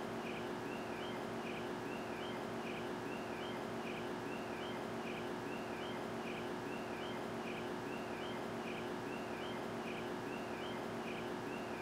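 A small animal's short, high call repeating about twice a second over a steady hiss and a low hum.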